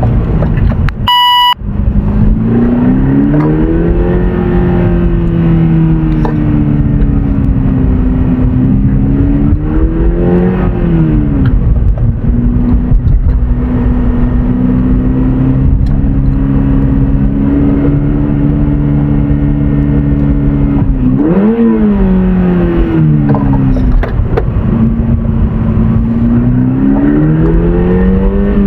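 Subaru BRZ's flat-four engine running while driving, its pitch rising and falling again and again as the car speeds up and slows, with one sharp rev and drop partway through. A brief beep-like tone cuts in about a second in.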